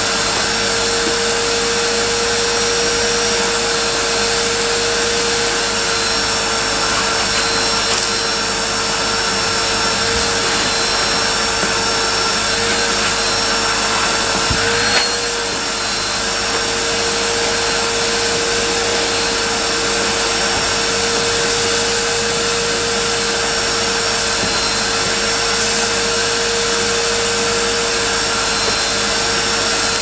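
Henry cylinder vacuum cleaner running steadily, with a constant whine over its rushing suction as the nozzle is worked over carpet. There is a brief knock about halfway through.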